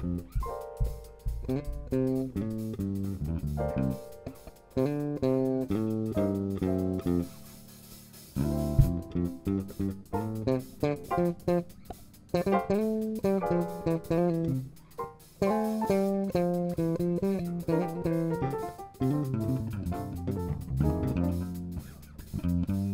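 Five-string electric bass played fingerstyle in a jazz solo, running through melodic lines of separate notes, with a drum kit keeping time lightly behind it.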